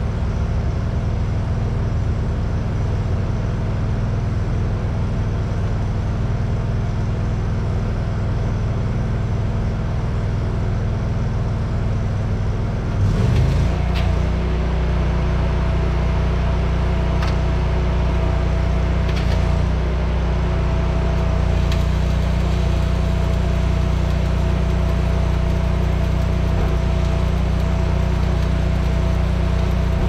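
An engine running steadily, dropping to a lower speed about thirteen seconds in and running on at the lower pitch. A few sharp clicks follow over the next several seconds.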